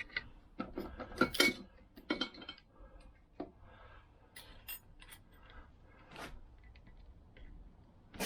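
Light metallic clicks and clinks of circlip pliers and a steel circlip being worked onto the gear cluster of a Vespa PX gearbox. The clicks come thickest in the first couple of seconds, then thin out into sparse faint ticks.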